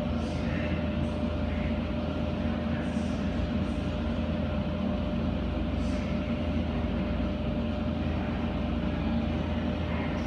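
Automatic tunnel car wash in operation: a steady machine hum with a constant tone, and water spraying while cloth wash strips and brushes work over a car's foamed body. A few faint hisses of spray come and go.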